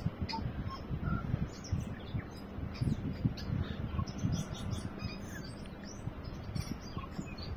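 A tui singing: a scattering of short, high-pitched chips, clicks and whistled notes. A low rumble runs underneath.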